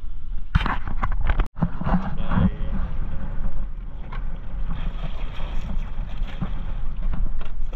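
A boat's motor running steadily, with wind on the microphone. A few sharp knocks of handling gear sound in the first couple of seconds.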